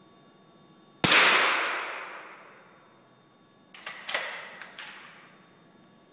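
A single small-bore .22 rifle shot about a second in, ringing off the hall as it fades over about two seconds. A few seconds later comes a quick cluster of sharp clicks.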